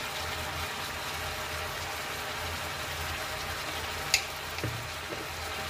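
Tomatoes, aubergine and potatoes frying in oil in a pan: a steady sizzle. A short sharp click sounds about four seconds in.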